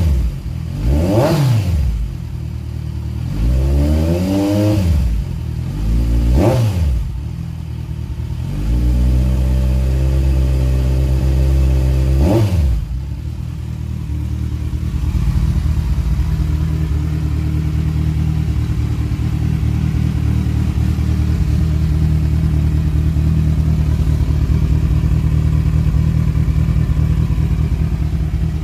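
Kawasaki Z1000 Sugomi's inline-four engine through an Akrapovic megaphone exhaust, revved in several quick throttle blips that rise and fall in pitch over the first seven seconds. A steadier held rev follows and drops off sharply about twelve seconds in, then the engine idles steadily.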